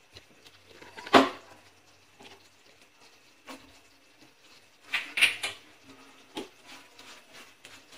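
Raisins tipped into a nonstick pan of melted jaggery and ghee, then stirred in with a silicone spatula: a sharp knock about a second in, then a few short knocks and scrapes against the pan around the middle and later.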